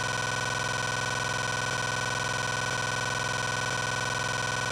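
A steady, unchanging electronic buzz: one pitched tone with many overtones, with a faint tick about once a second.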